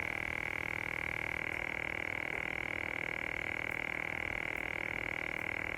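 Steady high-pitched whine with a fast, even pulsing flutter. This is the persistent background noise in the recording that viewers complain about.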